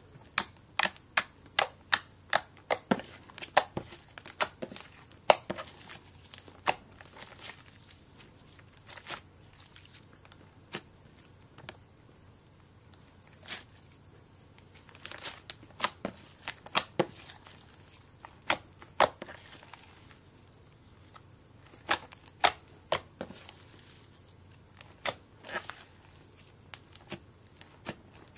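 Fluffy slime being squeezed, poked and pressed by hand, giving irregular sharp pops and crackles in clusters with short quiet gaps.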